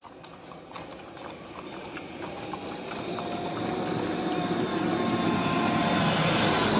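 A Nissan van's engine and tyres growing steadily louder as it approaches on a concrete road, with faint clops of walking ponies' hooves on the pavement in the first couple of seconds.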